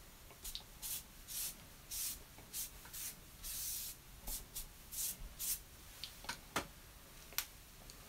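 Watercolour brush stroking across watercolour paper: a quick run of about a dozen short, soft swishes, then a few sharp ticks near the end.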